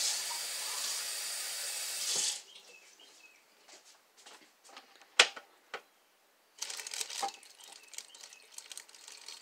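Kitchen tap running water into an empty soup can, shut off suddenly about two seconds in. Then small clicks and knocks of the can and utensils being handled, with one sharp click around five seconds in.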